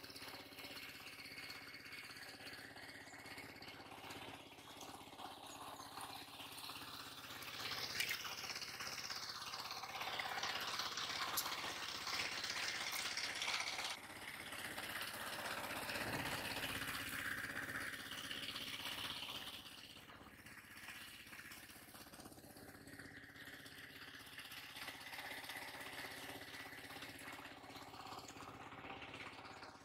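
An engine running steadily at a constant pitch, with a louder stretch of rushing noise over it from about 8 to 20 seconds in.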